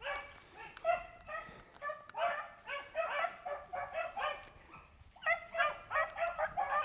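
A pack of beagles baying on a rabbit's trail: many short, overlapping calls from several dogs, growing louder and more frequent about five seconds in.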